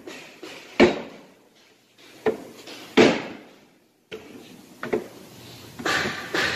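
A series of sharp wooden knocks and thumps as wooden wardrobe panels are set down and pressed into place, the loudest about a second in and about three seconds in.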